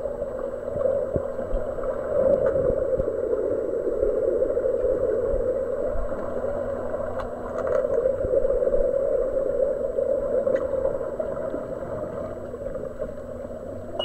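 Underwater swimming-pool ambience picked up by a submerged camera: a steady, muffled rushing noise, with a few faint clicks here and there.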